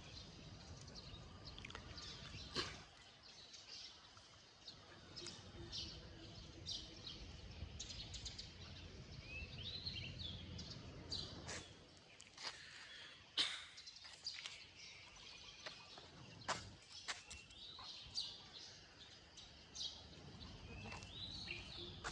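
Faint outdoor ambience of birds chirping: many short, sharp chirps and a few rising and falling calls, scattered through the whole stretch. A low rumble underneath comes and goes.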